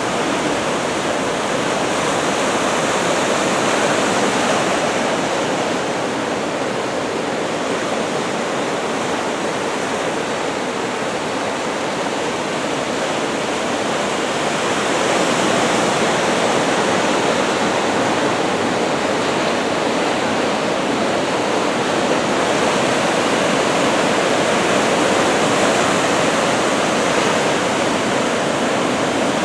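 Ocean surf: a steady roar of waves breaking along the shore below, swelling and easing slowly a few times.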